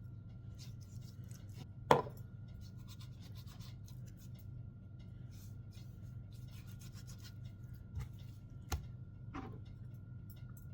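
Hands rubbing dry seasoning into raw chicken breast: soft rubbing and handling sounds over a steady low hum, with a sharp knock about two seconds in and a few smaller knocks later.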